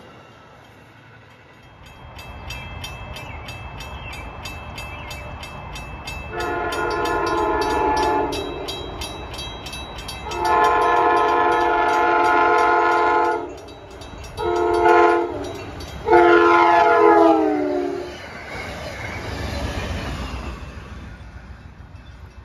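A locomotive's multi-note air horn sounding the grade-crossing pattern: two long blasts, a short one, and a last long one that drops in pitch as the train passes. Under the first half a railroad crossing bell rings rapidly, and the train's rumble follows the horn.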